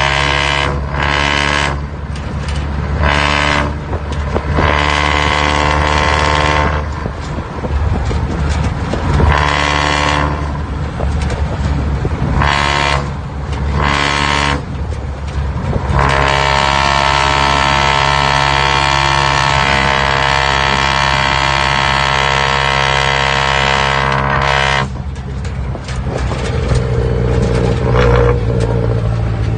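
Isuzu C240 four-cylinder diesel running with a low steady hum, under a loud horn-like tone from its four-divider muffler. The tone comes in a series of short blasts of a second or two, then one held for about nine seconds.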